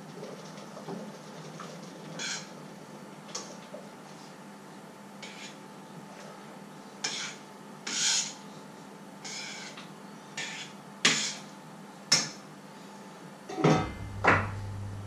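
A utensil scraping and clinking against a steel cooking pot while its contents are stirred, in short irregular strokes, with two louder knocks near the end; a faint steady hum runs underneath.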